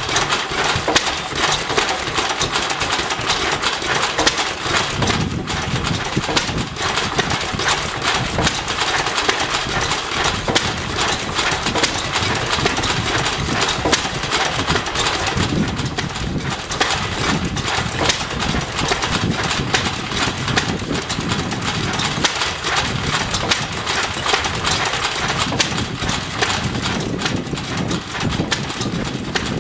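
Vintage Lister stationary engines running steadily, with a rapid, even clatter of firing strokes.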